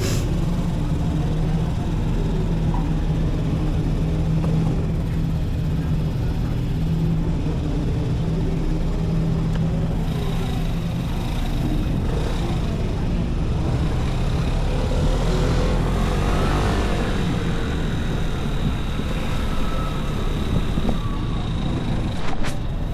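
Vespa Primavera 125 scooter's single-cylinder engine running under way, with a steady note for the first half, then the pitch rising and falling about midway as the throttle changes; a sharp click near the end.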